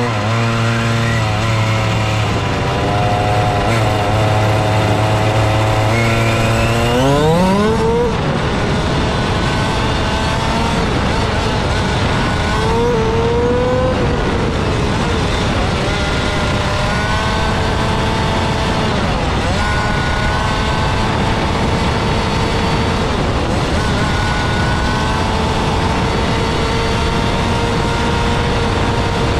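Onboard sound of a fifth-scale RC rally car driving on a paved road. Its motor holds a steady pitch, then rises sharply about seven seconds in as the car accelerates, and runs on at speed with road noise.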